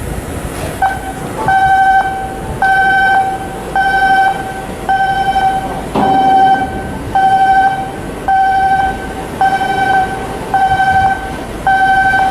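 Electronic warning alarm beeping steadily at one pitch, about ten long beeps a little under a second apart, over background machinery noise.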